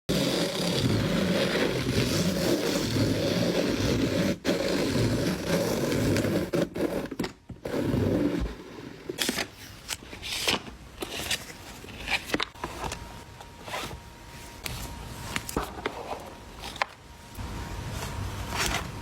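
Packaging materials being handled as an order is packed: a dense, continuous crinkling and scraping for about eight seconds, then scattered short rustles and clicks.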